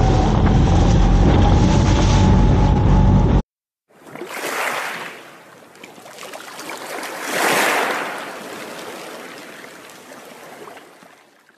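Motor boat under way in choppy sea: wind buffeting the microphone over a steady engine whine, cut off suddenly about three seconds in. Then an underwater whoosh sound effect swells twice and fades away.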